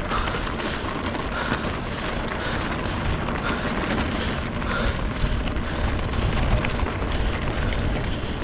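Wind buffeting the microphone of a camera on a moving bicycle, a steady rumbling rush with road noise underneath.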